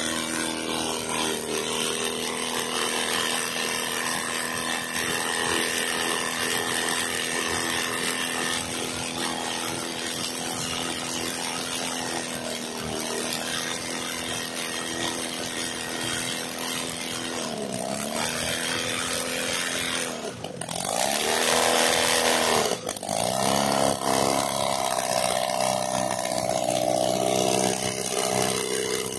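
Experimental air-cooled aircraft engine running steadily at a constant speed. About two-thirds of the way in, its speed dips sharply and recovers three times, then it runs faster and louder to the end.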